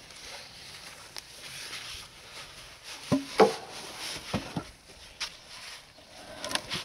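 Short logs being set down onto a wooden trailer deck and knocking against each other: a run of sharp wooden knocks, the loudest two about three seconds in, then several lighter ones.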